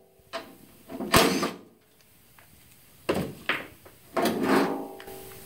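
Steel door of a 1966 Ford Bronco being moved by hand on its hinge: a sharp knock about a second in, then a few more metal clunks with short creaking rings.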